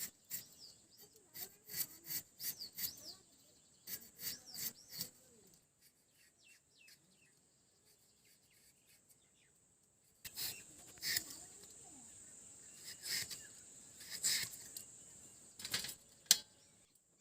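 Potatoes being cut by hand with a blade: scattered cutting and scraping strokes in two spells with a quiet pause between, and birds chirping in the background.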